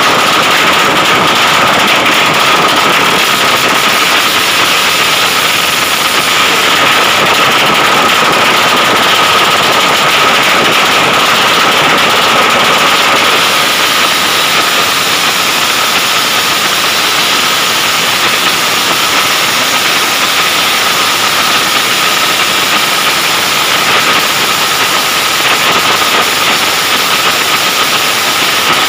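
Modified racing motorcycle engine running loud and steady at high revs through an open exhaust pipe, with one steady high tone and no breaks.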